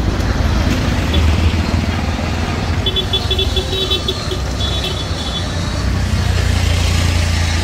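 Busy street ambience: a steady low rumble like motor traffic, with brief stretches of high, chattering tones about three and five seconds in.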